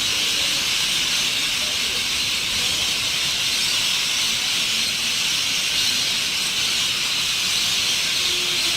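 Dense chorus of a very large flock of birds all calling at once as they settle to roost, blending into a steady high hiss with no single call standing out.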